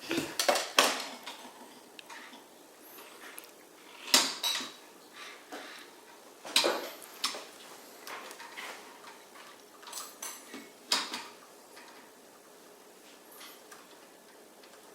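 Hard plastic clicking and rattling from a toy remote-control car being handled, its wheels turned by hand, in several short bursts a few seconds apart.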